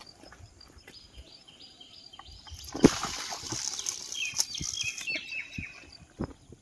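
Birds chirping in short stepped calls, and a hand line being cast off a bottle spool: a sharp thump a little before halfway, then about two seconds of high hiss.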